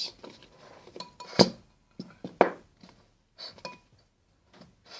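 A few sharp knocks and clinks of plastic bottles and containers being handled and set down on a table, the loudest about a second and a half in.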